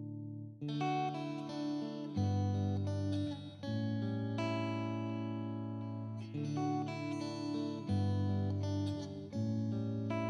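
Background music: a solo acoustic guitar playing plucked chords, a new chord struck every second or two.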